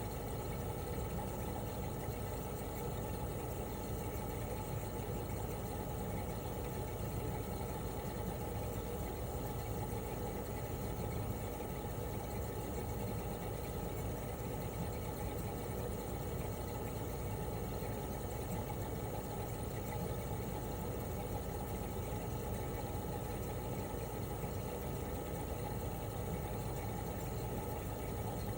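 1997 Toshiba RAS-285BAD air conditioner outdoor unit running steadily in cooling mode: its inverter-driven twin rotary compressor humming, with the propeller fan turning. Several steady tones sit over an even hum.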